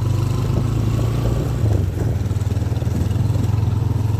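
A motor vehicle's engine running steadily: a loud low hum with a fast, even pulse and road or wind noise over it.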